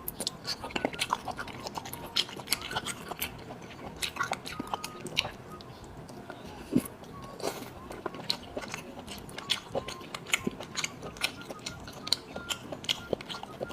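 Close-miked chewing and biting of marinated arctic surf clam: wet, crunchy clicks and crackles, several a second.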